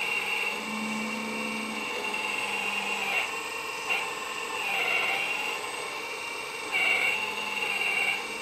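Electric hydraulic pump of a 1/12-scale JDM-1 RC hydraulic excavator running with a steady whine. Its pitch and loudness dip and recover several times as the boom and arm are raised and lowered.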